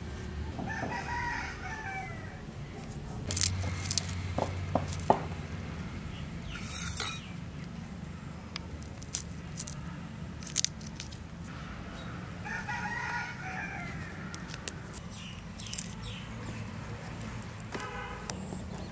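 A rooster crowing twice, once about a second in and again about two-thirds of the way through, with a short call near the end. In between are light clicks and rustles of a head of garlic being broken apart and peeled by hand.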